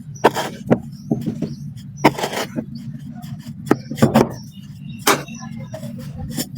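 Black sand being crumbled and crunched by hand: irregular sharp crunches and short gritty rustles, over a steady low hum.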